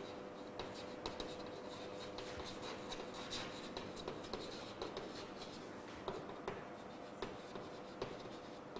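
Chalk writing on a blackboard: faint scratching strokes with irregular small taps as the chalk meets the board.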